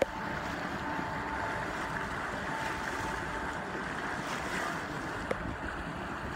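Steady rushing hiss of the bow wave breaking and splashing along the hull of a sailing yacht under way. A faint thin steady tone runs over the first few seconds.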